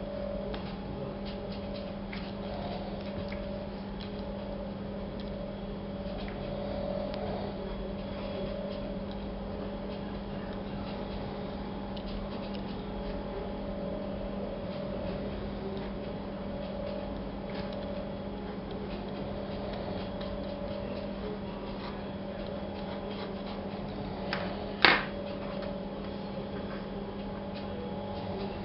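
A steady low hum, like an appliance or machine running, with faint scattered ticks over it and one sharp click near the end.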